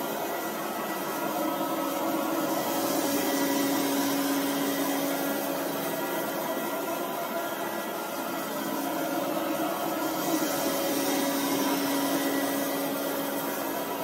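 Robot vacuum cleaner running on carpet: a steady motor whir and hiss with a low hum. The hum swells twice, a few seconds in and again later.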